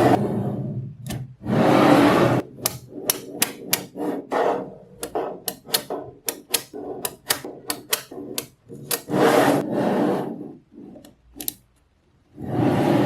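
Small magnetic balls clicking sharply as they snap together, several clicks a second. Longer stretches of many balls rattling together come about 2 s in, around 9 to 10 s in, and near the end.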